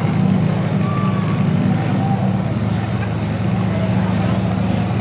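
Demolition derby car engines running steadily, with no crashes.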